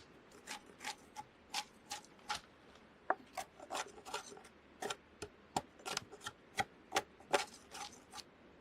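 Bark being scraped off a raw log with a hand tool, in short strokes roughly two to three a second that stop shortly before the end.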